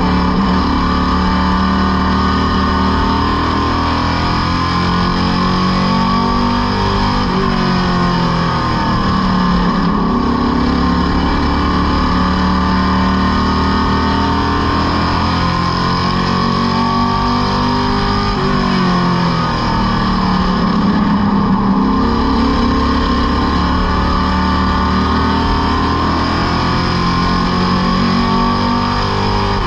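Superstock race car's engine heard from inside the cockpit, running hard around the oval; its pitch drops and climbs back up about three times as the driver lifts for the corners and gets back on the throttle.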